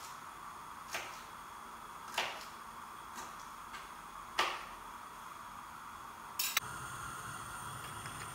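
Knife chopping green beans on a cutting board: a few sharp single taps spaced about a second apart. Near the end a steady low hum comes in.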